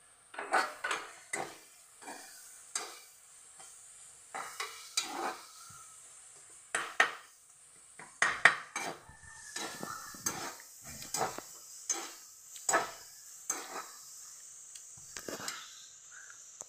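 A spatula stirring and scraping vegetables around a non-stick kadai, in irregular strokes about once a second, over a faint steady sizzle of the vegetables frying.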